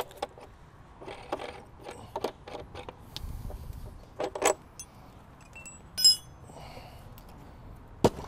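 Belly-band clamp of a cartridge pool filter being loosened and unlatched by hand: scattered clicks and scrapes, then a short ringing metallic clink about six seconds in.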